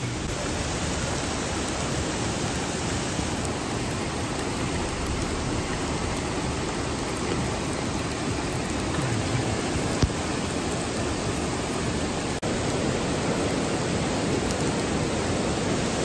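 Steady hiss of heavy rain and rushing floodwater, with a brief cut-out about three-quarters of the way through.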